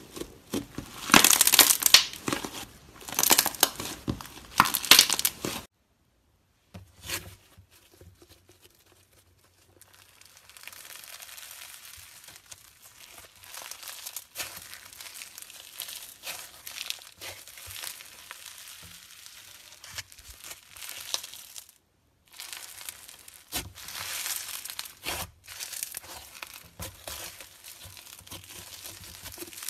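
Slime squeezed, stretched and pressed by hand, crackling and crinkling as it is worked. It is loudest in the first few seconds, then quieter after a brief silent break, as a blue-and-pink textured slime is pressed under the fingers, with a second short break later on.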